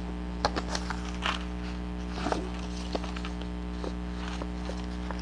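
Paper book pages being handled and shuffled: scattered light rustles and soft taps, over a steady low hum.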